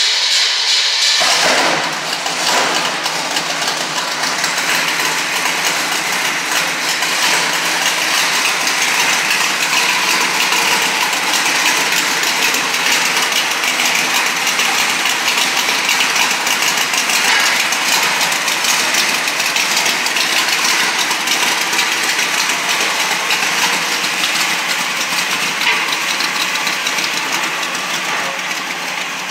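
A loud, steady mechanical running noise that starts suddenly and holds even throughout.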